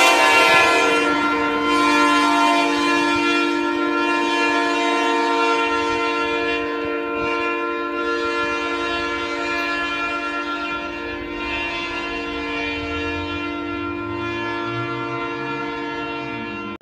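Union Pacific freight locomotive's air horn sounding one long chord of several notes, fading slowly as the train moves away.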